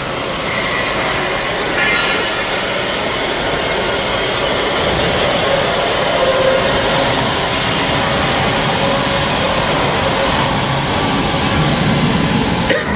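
Steady, loud industrial noise of a pipe fabrication shop floor, with pipe welding going on close by. It is an even roar across the range, with a brief unsteady bump near the end.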